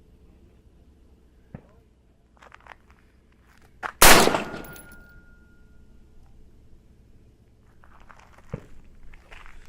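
A single .223 shot from an AR-15 rifle about four seconds in, sharp and loud with a short echoing tail, preceded by a few faint clicks and knocks.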